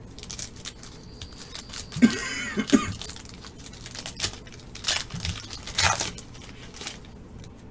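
Foil trading-card pack wrapper crinkling and tearing as it is pulled open by hand, in scattered crackles. There is a louder, denser burst just after two seconds in and sharp crackles near five and six seconds.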